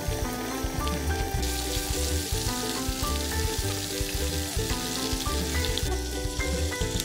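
Hot oil sizzling as a battered whole chicken deep-fries in a steel pot, under background music with a pulsing bass. The sizzle grows louder about a second and a half in and drops back near the end.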